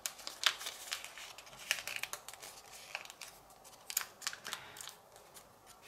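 Folded sheet of origami paper being pressed and shaped between the fingers: irregular short rustles and crackles of the paper, the loudest about half a second in and again near four seconds.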